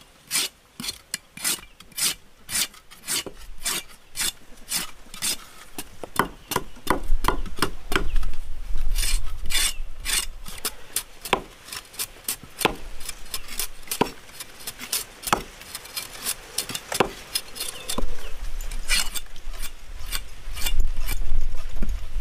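Machete blade scraping the skin off cassava roots in quick repeated strokes, about two a second at first and closer together later.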